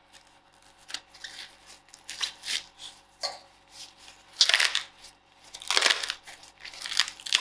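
Green husks being torn and peeled back from fresh ears of corn, as a series of short rips and crackles. The two loudest come about four and a half and six seconds in.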